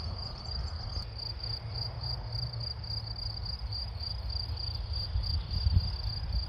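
Meadow insects chirping in a fast, even pulsing trill, over the low rumble of the Dassault MD312 Flamant's twin piston engines as it taxis in the distance.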